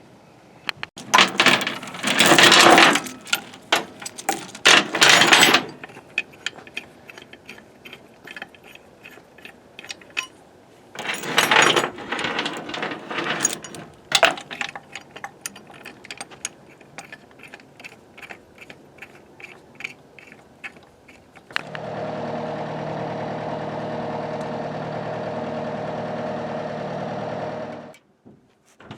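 Shop work on metal: several loud noisy bursts and many rapid clicks and knocks from hand tools, then a steady mechanical hum that starts suddenly near the end, runs about six seconds and stops.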